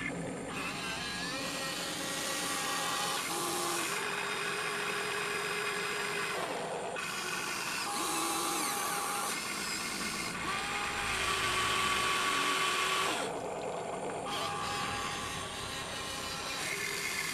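Electric motors of a Huina radio-controlled excavator whining as the arm, bucket and turntable move. The whine comes in stretches of a few seconds, each at a different pitch, stopping and starting as the controls change, with a brief sliding whine about halfway through.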